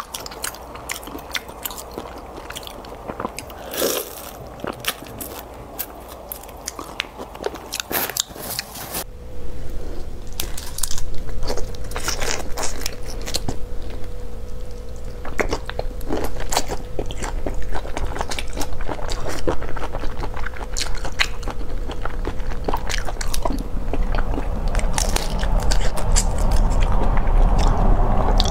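Close-up eating sounds of raw marinated shrimp being sucked and chewed, with many short wet clicks and crunches. About nine seconds in, the background steps up and the eating gets louder.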